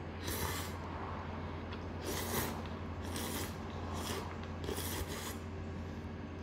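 Tempura soba noodles and broth being slurped in about five short, noisy pulls, over a steady low hum.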